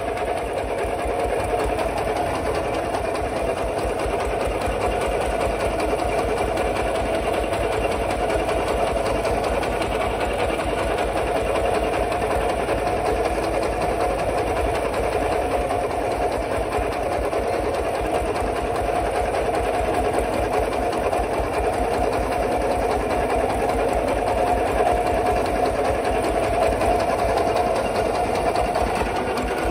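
Kubota RT140 walking tractor's single-cylinder diesel engine chugging steadily under load while it pulls a plough tine through dry soil.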